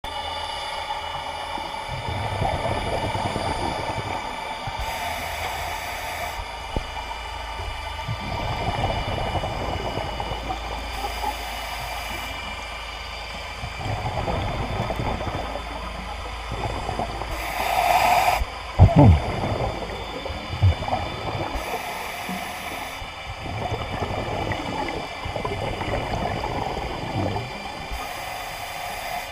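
Scuba regulator breathing heard underwater: a short hissing inhalation alternating with a long bubbling exhalation, repeating about every six seconds. A sharp knock comes about two-thirds of the way through.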